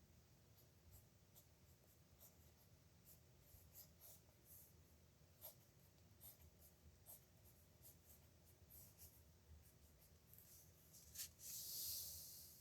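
Nib pen scratching on paper in a run of short, faint strokes, with a longer, louder scratch near the end.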